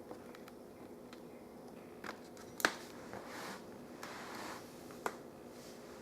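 Small sharp clicks and a brief scraping from a screwdriver and small screws being worked into a laptop screen assembly, the loudest click about two and a half seconds in and another near the end, over a faint steady hum.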